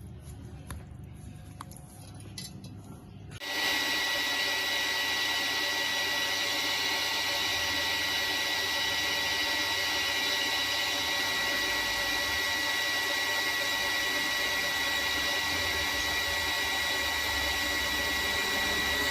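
A few faint clicks, then a power tool's motor starts suddenly about three seconds in and runs steadily at full speed, with a steady whine in it.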